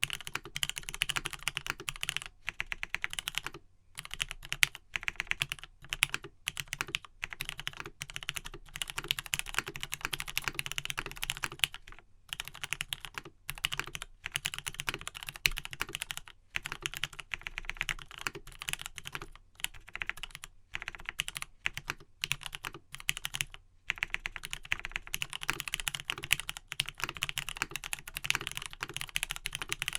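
Typing on a Matrix 1.2OG mechanical keyboard with lubed Gateron Pink linear switches on a full aluminium plate and OG Cherry doubleshot keycaps: fast, steady runs of keystrokes broken by brief pauses.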